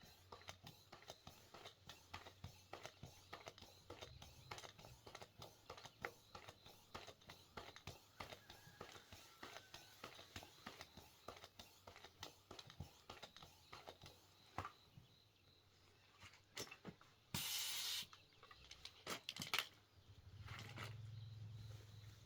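Faint, irregular clicks and handling noises, with a short burst of hiss late on followed by a few sharper clicks.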